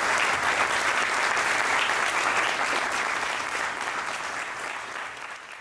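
Audience applauding: dense, steady clapping that tapers off a little near the end.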